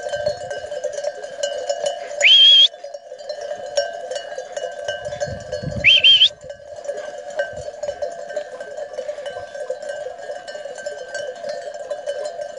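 Bells on a grazing flock of sheep jangling continuously, many ringing at once. Two short, loud high-pitched calls cut through, one about two seconds in and another about six seconds in.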